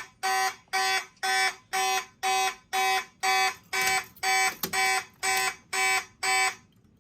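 Fire alarm horns, among them a Simplex 2901-9806 horn/strobe, sounding in march time at 120 beats per minute, about two short blasts a second. The horns stop suddenly near the end.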